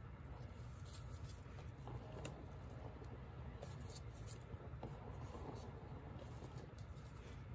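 Faint scratching and light tapping of a wooden stick against a wet painted canvas, over a low steady hum.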